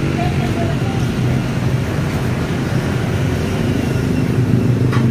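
Steady low rumble of road traffic from a busy boulevard.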